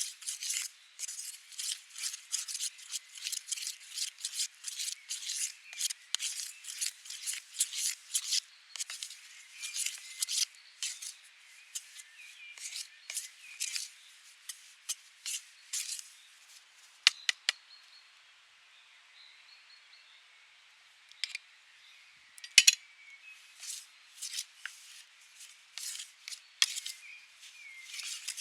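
Repeated short scraping strokes, about two a second, that thin out and pause around the middle before starting again, with a few sharp clicks.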